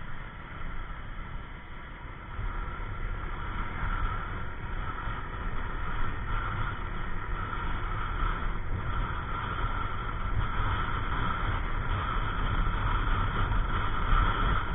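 Yamaha NMAX 155 scooter's 155 cc single-cylinder engine and wind rumble heard while riding, a steady drone that grows louder after about two seconds.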